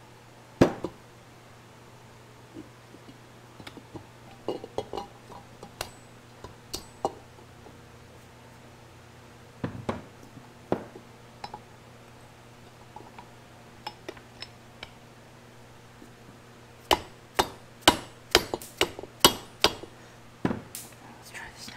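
Metal parts of a Ford 8.8 differential clinking and knocking as they are handled: scattered light taps, then a quick run of sharper clinks near the end as the pinion flange is worked onto the pinion. A steady low hum lies underneath.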